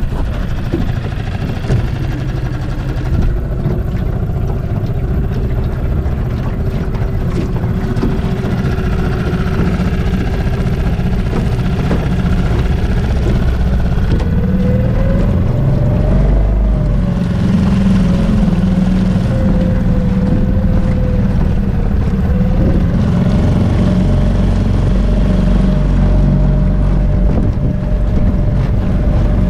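Yamaha 4 hp four-stroke outboard motor running under way at no more than half throttle during its break-in. Its pitch rises about halfway through as it picks up speed, dips briefly, then rises again and holds steady.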